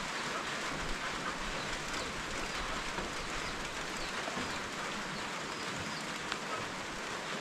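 Steady rain falling, an even hiss with no break. A few faint short chirps from a bird sound over it in the middle.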